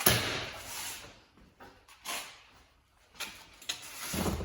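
Parts and tools being shifted and handled: a sharp clatter right at the start that fades over about a second, another shorter one about two seconds in, and a few dull knocks near the end.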